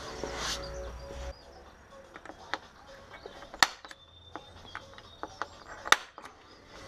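An automatic centre punch snapping twice, two sharp clicks about two seconds apart, as it punches screw-hole marks in the metal by the A-pillar. A few lighter taps come between them, over faint background music.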